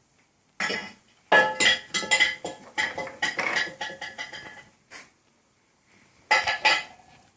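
Metal tools and engine parts clinking and clanking against each other, with a ringing tone. A first clink comes just under a second in, then a long rattling run of clanks, and another short burst near the end.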